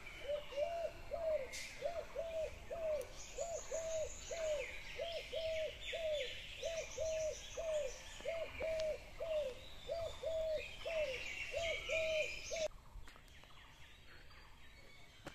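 A bird calls a long, evenly spaced series of low hoots, about two a second, over the higher chirping of small birds at dawn. The hooting stops suddenly near the end.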